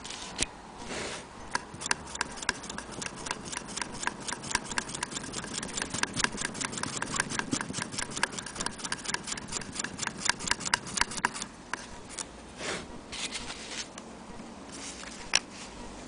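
Antique Willcox & Gibbs sewing machine running, its mechanism clicking in a rapid, even rhythm for about ten seconds. It then stops, followed by a few single clicks.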